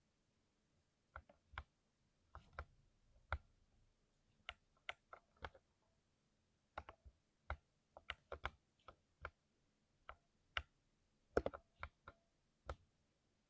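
Keys of a lubed 60% mechanical keyboard being pressed one at a time at an irregular, unhurried pace, each a short sharp clack. A quick flurry of strokes about eleven seconds in is the loudest.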